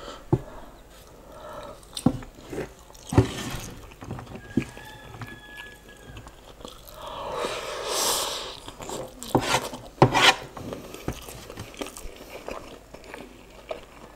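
Close-up eating sounds of instant noodles: chewing, scattered sharp clicks of the wooden spoon and fork against the metal tray, and a long noisy slurp of noodles about eight seconds in.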